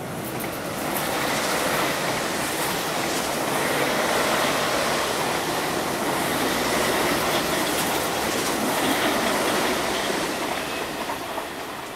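An MTR East Rail Line MLR electric multiple unit passes on the track: a steady rumble of wheels on rail builds over the first couple of seconds, holds, then fades near the end. A faint high whine runs through it.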